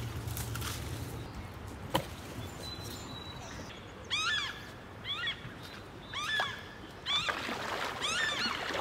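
German shepherd whining on the bank in short, high, rising-and-falling whines about once a second, starting about 4 s in: the impatient, frustrated whining of a dog left waiting to play. A single sharp click about 2 s in.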